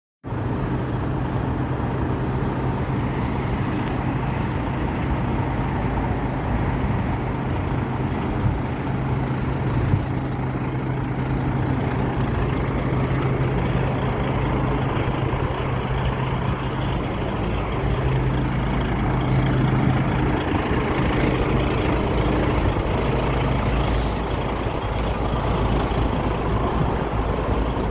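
Road traffic at a level crossing: a vehicle engine runs with a steady low hum, with a short hiss about 24 seconds in.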